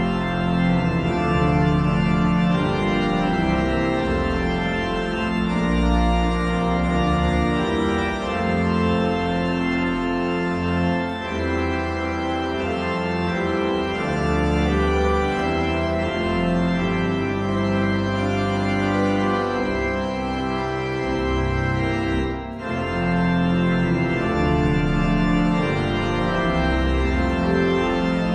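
Digital church organ (a Rodgers 960 console sounding virtual cathedral pipe organ samples) playing full sustained chords over a deep pedal bass. There is a short break between phrases about two-thirds of the way through, and then the playing resumes.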